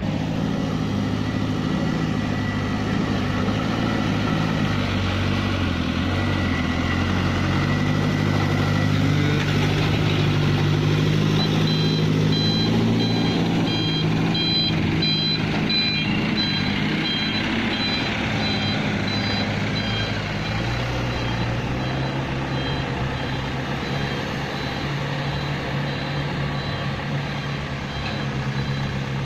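Heavy diesel engines of quarry machinery, an excavator and a dump truck, running under load, their pitch rising and falling as they work. Through the middle stretch a reversing alarm beeps in a steady run of short high pulses.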